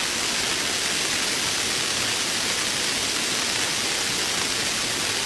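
Heavy rain falling steadily, an even hiss that does not change.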